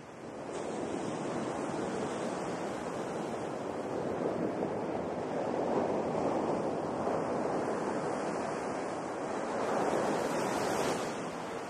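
Sea surf washing in, a steady rush of waves that swells loudest around the middle and again near the end.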